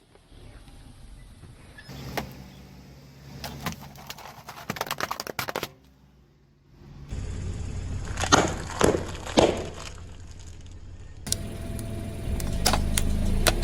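Car tyres rolling slowly over objects and crushing them, with a low engine hum under a series of crackles and sharp crunches, in several short clips cut together; the loudest crunches come about eight to nine and a half seconds in.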